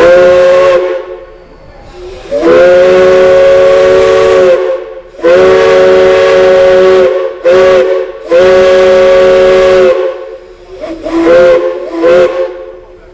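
Steam chime whistle blown in a series of blasts, several steady notes sounding together as a chord. A short blast opens, then come three long blasts of about two seconds each with a short toot between the last two, and two quick toots near the end.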